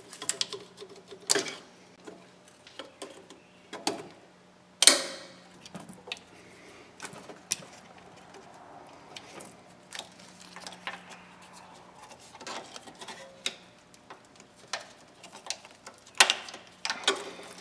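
Scattered sharp clicks and rattles of hands unplugging the old wheel speed sensor's wiring connector and unclipping its harness from the wheel well, with the sharpest click about five seconds in. A ratchet clicks on a fastener near the end.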